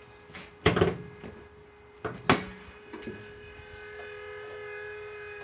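Two loud knocks, then a steady electric whirring hum of several fixed tones starts and settles: the SW20 Toyota MR2's unexplained humming noise before the engine is started.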